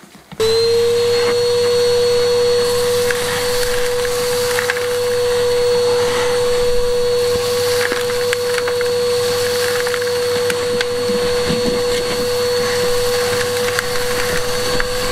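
Vacuum cleaner switched on about half a second in and running with a steady whine as its hose sucks dust and grit off a stone-slab floor, with small rattles and scrapes of debris going up the hose.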